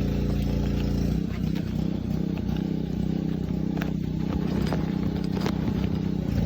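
An engine running steadily in the background; its hum turns uneven about a second in. A few light clicks and scrapes come from small parts being handled and unwrapped.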